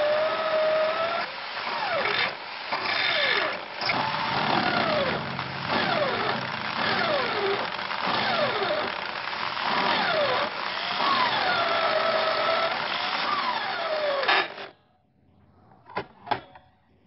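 Electric drill in a drill-press stand running as the bit cuts into the workpiece, with a squeal that slides down and back up in pitch several times. The drill stops abruptly about 14 to 15 seconds in, followed by two light clicks.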